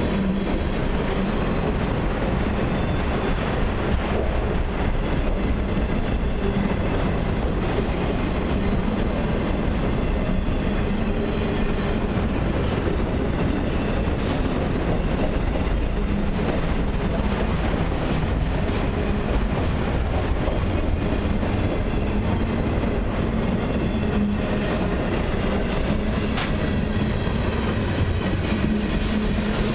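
Freight train cars, a mix of autoracks and other cars, rolling steadily past, with wheels on rail making a continuous rumble and clickety-clack over the joints.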